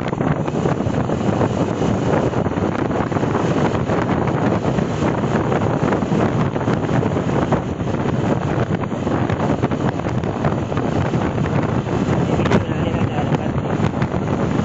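Wind rushing over a phone microphone on a moving Honda CB Shine motorcycle at highway speed, mixed with the bike's engine and road noise. One short sharp knock near the end.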